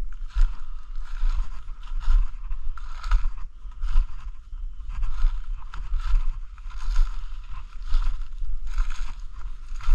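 Footsteps crunching through dry leaf litter, about one step a second, with low thumps from the handheld camera moving along.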